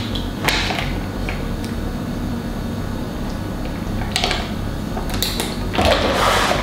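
A metal spoon scooping and scraping thick yogurt from a plastic tub into a ceramic mixing bowl, then the tub being handled: a few soft scrapes and light knocks, about half a second in and more near the end, over a steady low hum.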